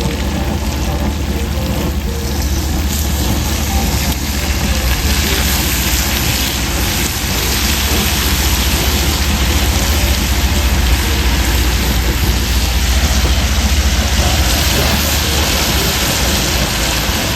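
Andouille sausage and onions sizzling in bacon grease in a large jambalaya pot: a steady frying hiss that swells a little after a few seconds, over a constant low rumble.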